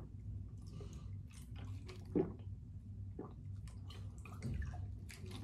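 A person gulping water from a plastic bottle: a string of short, irregular swallowing sounds over a steady low hum.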